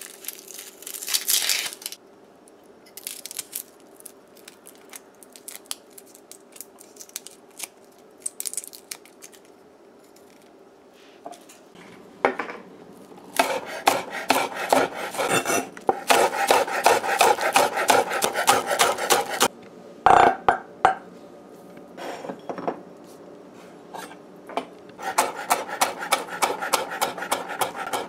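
A kitchen knife working on a wooden cutting board: first a short scrape as onion skin is peeled, then scattered light taps, then quick runs of knife strokes knocking on the board as scallion is sliced and chopped, with a pause about two-thirds of the way through.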